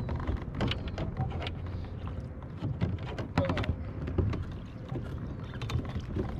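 Water splashing and lapping around a large landing net held in the lake beside a kayak, with scattered small knocks and clicks at irregular moments over a low rumble.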